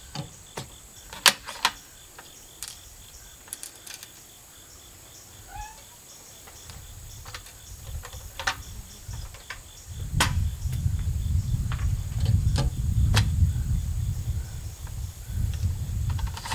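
Clicks and knocks of a muzzleloading rifle and loading gear being handled at a bench, the sharpest knock just over a second in. From about ten seconds in a low rumble rises and continues. Crickets trill steadily in the background.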